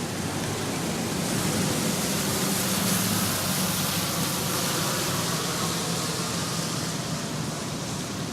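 Steady heavy rain hiss that swells louder for several seconds in the middle, with a low rumble underneath, then eases back.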